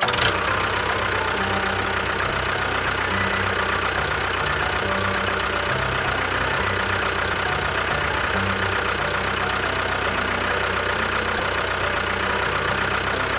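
Engine idling steadily with a fast, even knocking beat. It starts suddenly and cuts off suddenly.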